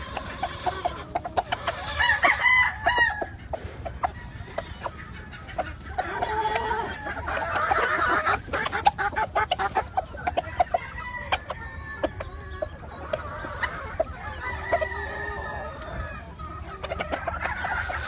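Gamefowl roosters crowing several times, with clucking and scattered short clicks in between; the loudest crow comes about two to three seconds in.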